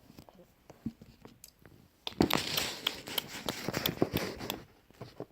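Small plastic toy figures and pieces being handled and set down: a few light clicks, then about two seconds in a stretch of rustling and rapid clicking.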